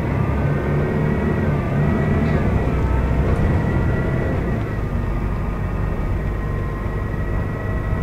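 Volvo B12BLE city bus's diesel engine and drivetrain heard from inside the passenger cabin while under way. A low drone carries several whining tones that rise in pitch, shift about two seconds in, and settle to a steadier pitch about five seconds in.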